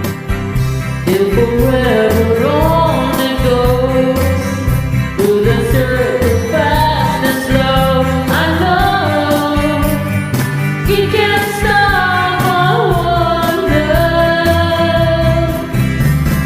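A rock song with a singing voice over a steady band accompaniment.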